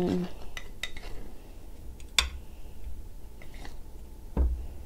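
A few light clicks of tableware on a plate as chili sauce is spooned onto it, with one sharper click about two seconds in and a soft low knock near the end.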